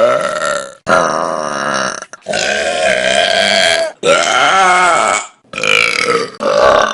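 Human burps, one after another: about six long, loud belches, each a second or so, each cut off sharply where one short clip gives way to the next.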